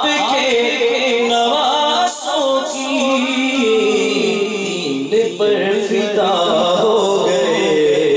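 A man singing a naat, an Urdu devotional poem, solo into a microphone, drawing out long ornamented notes that slide up and down in pitch.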